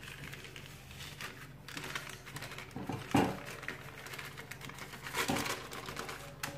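Baking paper rustling as it is slowly peeled off the bottom of a warm chocolate sponge cake, with brief louder rustles about three and five seconds in.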